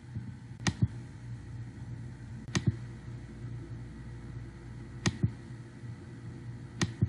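Computer mouse buttons clicking: four pairs of sharp clicks, spaced about two seconds apart, over a low steady hum.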